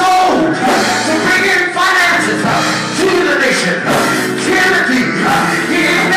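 Loud church music with singing.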